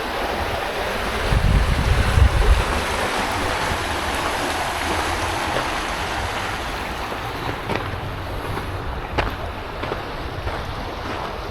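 Stream water rushing steadily, with wind buffeting the microphone for about a second and a half early on and a few light taps near the end.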